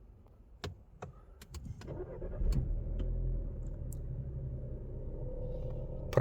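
Volkswagen Polo Liftback's 1.4-litre engine idling with a steady drone and a whining tone from the alternator area, which the owner puts down to the alternator. The engine sound grows louder about two seconds in, and a few sharp clicks come and go.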